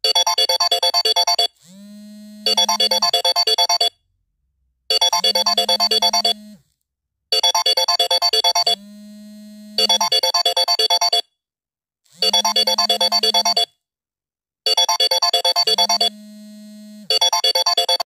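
Electronic phone ringtone: bursts of rapid, high trilling beeps over a steady low tone, each burst about a second and a half long, repeating with short pauses in between.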